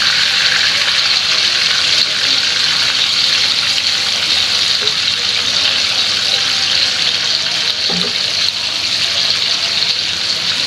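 Shrimp sizzling steadily as they fry in hot oil in a frying pan.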